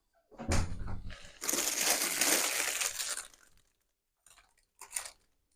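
A knock, then about two seconds of crinkling and crumpling of packaging as parts are handled, with a couple of short clicks near the end.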